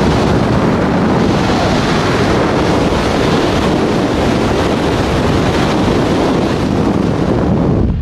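Steady rush of wind buffeting the microphone, mixed with tyre and road noise from a car travelling at speed on a highway.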